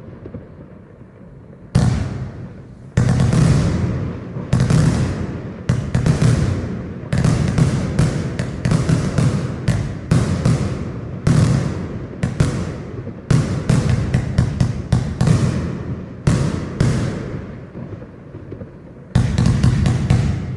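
Blackboxx Groupie 30 mm firework cake firing: a rapid, irregular string of sharp shots, each followed by a rumbling decay, sometimes several a second. The shots start about two seconds in, pause briefly near the end, then resume.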